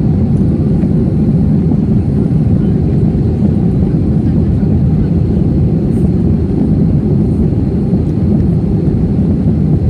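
Cabin noise of an Airbus A321 airliner during the climb after takeoff: a steady, deep rumble of engines and rushing air, heard from a seat by the wing.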